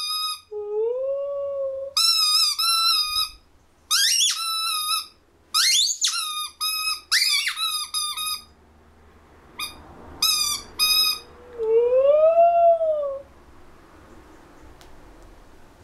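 A squeaking toy ball giving repeated bursts of shrill, wavering squeals, answered twice by a white Siberian husky's short, smooth howl that rises and falls in pitch, once just after the start and again around twelve seconds in.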